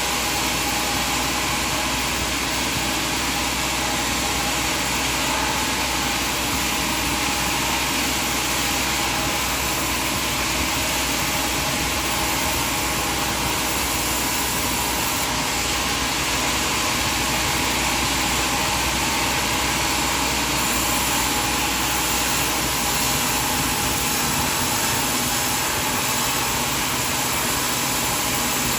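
Sawmill machinery running with a steady, unbroken drone; no separate cuts or knocks stand out.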